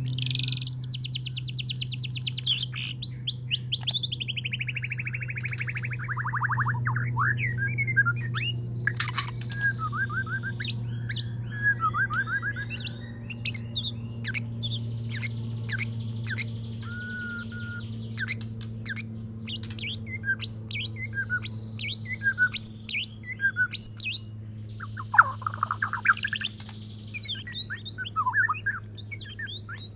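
Male white-rumped shama (murai batu) singing its courtship song. It opens with a fast trill that slides down in pitch over several seconds, then goes on in varied whistles and sharp chirps. A steady low hum runs underneath.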